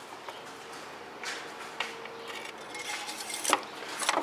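Metal engine-oil dipstick sliding down its tube, scraping and clicking against it, with the sharpest clicks near the end as the plastic handle is pushed home.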